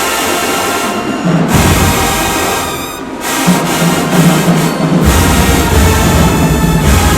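Loud brass-heavy music with drums; a heavy low bass comes in about five seconds in.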